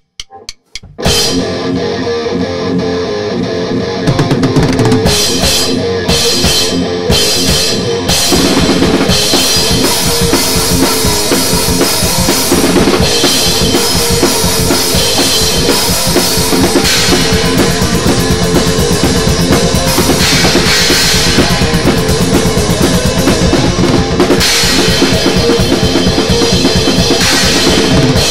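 Thrash metal played on distorted electric guitar and drum kit, with fast bass-drum strokes and cymbals. A few short clicks come first, then the band comes in loud about a second in.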